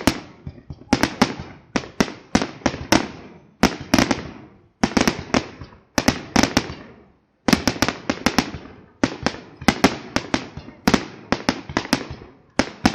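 Aerial fireworks shells bursting in quick succession: clusters of sharp bangs, several a second, each with a fading echoing rumble, and brief lulls between volleys.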